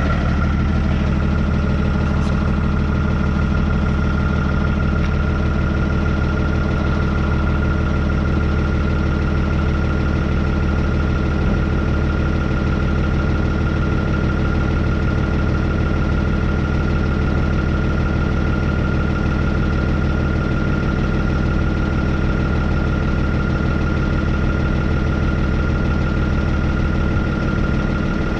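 Hino truck's diesel engine idling steadily, with a steady high-pitched whine over it.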